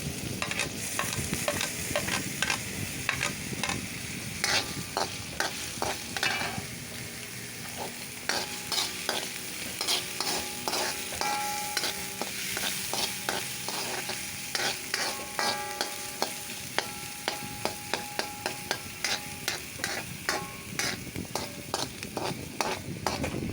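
Pounded onion and garlic sizzling in hot oil while being stirred, with frequent sharp clicks and scrapes of the utensil against the pan.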